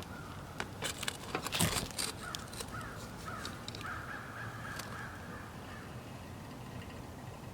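A bird calling repeatedly outdoors, the calls coming in a run with a longer one about four seconds in. Over it, a few sharp knocks and scrapes of work on the roof about a second and a half in.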